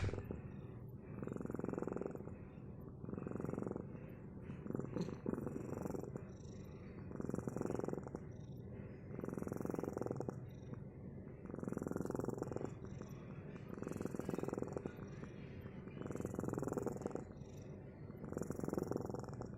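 A cat purring, the purr swelling and fading with each breath about every two seconds.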